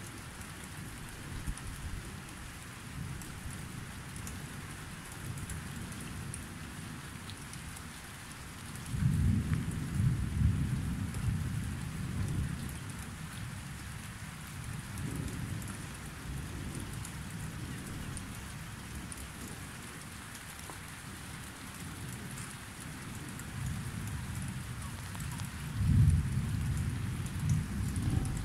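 Thunderstorm: steady rain hiss, with a long deep roll of thunder about nine seconds in lasting several seconds, and another roll of thunder starting near the end.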